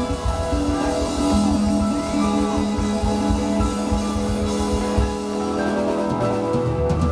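Live rock band playing: Stratocaster electric guitar, drum kit, bass and keyboards, with long held notes over the drums. The drumming thins out about five seconds in.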